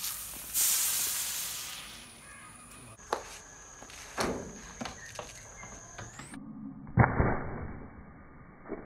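Vinegar-and-baking-soda bottle rocket launching: the cork blows out and the plastic bottle sprays out its foaming gas with a hiss that fades over about a second and a half. A few sharp knocks follow, then near the end another sudden pop and spray from a second launch.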